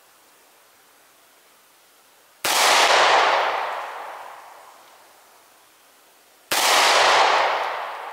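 Two pistol shots about four seconds apart, each a sharp crack that fades away over about two seconds: part of a three-shot group fired at 5 yards.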